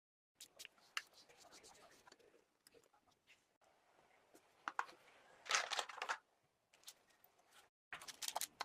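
Small clicks, scratches and rustling from hands working on a toy model car, with a louder stretch of scraping about five and a half seconds in and a shorter one near the end.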